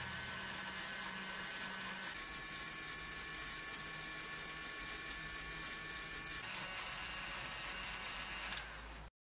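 Small Lego electric motor and its gear train whirring steadily as the machine's four propellers spin, with a faint high whine on top. The whine's pitch shifts about two seconds in and again about six and a half seconds in, and the sound cuts off abruptly just before the end.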